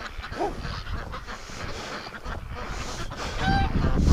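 Domestic geese honking, one short call about half a second in and a longer, clearer honk near the end, over wind rumbling on the microphone.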